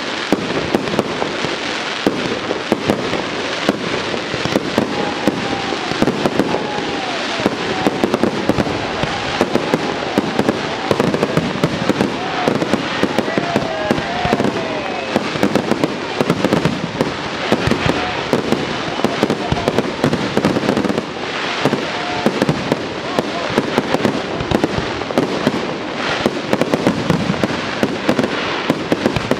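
Aerial fireworks display: a dense, continuous barrage of shell bursts and crackling stars, with sharp reports coming several times a second.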